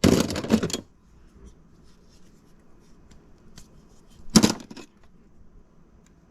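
Rustling and clinking of used bicycle parts being rummaged through while searching for a front derailleur, with a burst of handling noise at the start and one loud clatter about four and a half seconds in.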